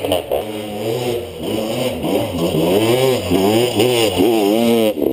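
Enduro dirt bike engines revving up and down over and over, the pitch rising and falling about twice a second.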